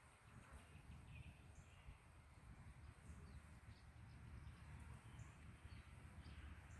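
Near silence: faint outdoor ambience with a low rumble and a few faint, scattered bird chirps.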